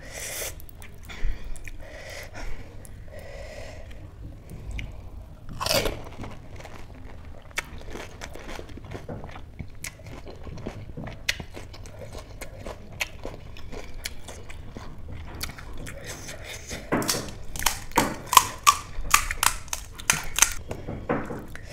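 A person biting and chewing crisp pani puri shells, with scattered crunches and a denser flurry of crunching near the end.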